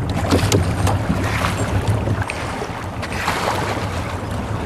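Motorboat underway: a steady low engine hum with wind buffeting the microphone and water rushing past the hull.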